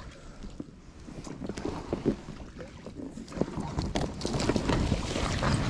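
Inflatable kayak being paddled: water sounds from the paddle strokes with small knocks, growing louder after the first second. Near the end, twigs rustle as they brush past the boat.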